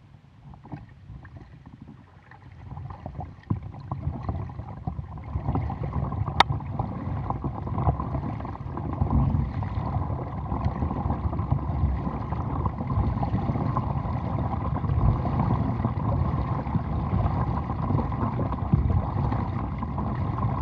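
Water splashing and rushing along the hull of an Oru Bay ST folding kayak as it is paddled, heard close at the bow. The sound builds over the first few seconds and then runs steadily, with a single sharp click about six seconds in.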